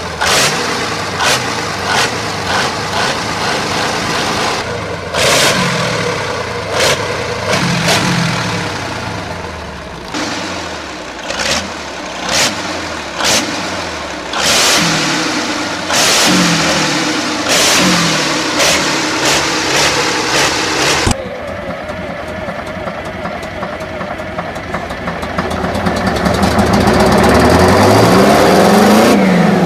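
Water-cooled 60° 23-litre V12 gasoline engine running on its short open exhaust stacks, with sharp blasts about a second apart as it is revved up and down repeatedly. Then a Big Bud 747 tractor's 16-cylinder two-stroke diesel engine pulling under load, swelling and rising in pitch near the end.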